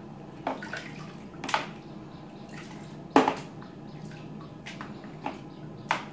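Water splashing and sloshing in a plastic basin as a small child dips and lifts a plastic scoop: about six short splashes, the loudest about three seconds in.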